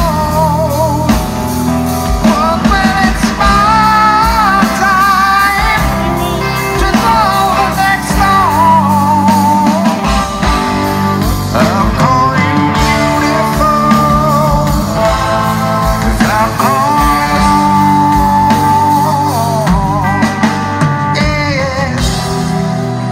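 Live rock band: a male lead vocal sings long, sliding melodic lines over electric guitar and bass.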